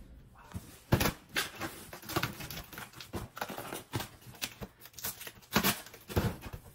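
Cardboard box handled on a concrete floor and its flaps pulled open: a string of scrapes, rustles and knocks of cardboard, the loudest about a second in and again near the end.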